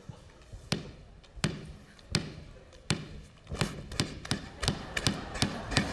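A series of sharp thumps. They are evenly spaced at first, about one every 0.7 seconds, then quicken past halfway to about three a second and grow louder.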